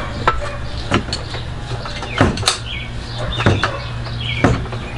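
Socket wrench tightening engine-mount bolts: sharp metallic clicks and knocks about once a second, over a steady low hum.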